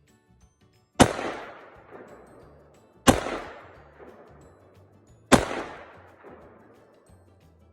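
Three single rifle shots from a Zastava AK-pattern rifle, about two seconds apart, each sharp crack trailing off in a long echo.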